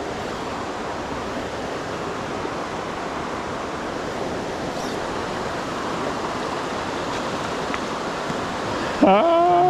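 Steady rushing of a rain-swollen creek running high. About nine seconds in, a loud pitched sound starts suddenly, bends up in pitch, then holds steady.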